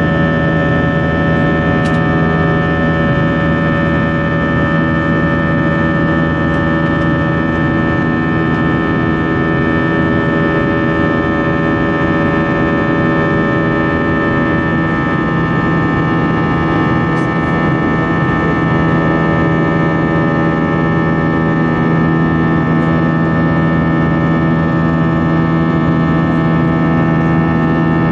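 Airbus A321 cabin noise in flight over the wing: the jet engines and airflow make a steady drone with several constant tones held through it.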